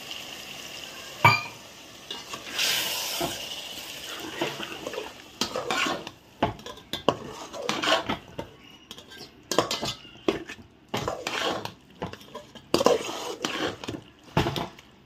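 Water poured into a pot of frying mutton masala hisses for the first couple of seconds. Then a steel spoon stirs the curry in the metal pot, scraping and clinking against its sides again and again.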